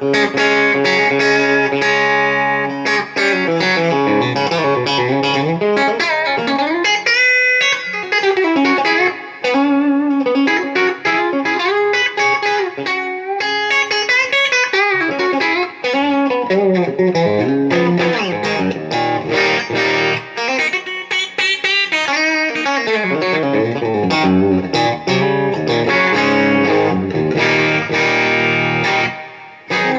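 Electric guitar played through a Quilter amplifier over a Joyo wireless transmitter and receiver, a continuous lead line full of bent notes; the wireless link is carrying the signal to the amp.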